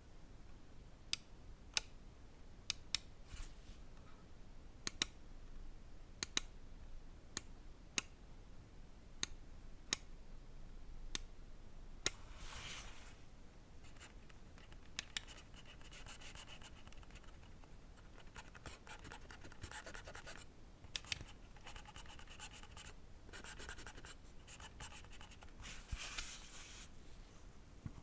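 Pulsar Xlite V3 gaming mouse being tested. For about the first twelve seconds its buttons are clicked one at a time, some as a sharp press-and-release pair. After that the scroll wheel is rolled in several stretches of a second or two, its notched encoder giving a fast, rattly ticking, with a few more single clicks between.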